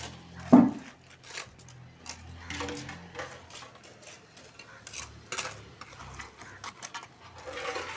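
Scattered clinks and knocks of hand work, with the loudest knock about half a second in.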